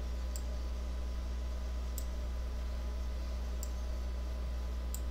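Four sharp computer mouse clicks about a second and a half apart, placing anchor points with the pen tool, over a steady low electrical hum.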